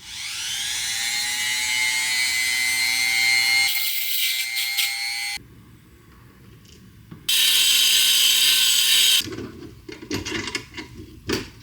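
Small electric grinder sharpening a tungsten electrode: the motor spins up with a rising whine and runs steadily, then stops abruptly about five seconds in. A second loud stretch of grinding follows, then a few knocks and clatter near the end.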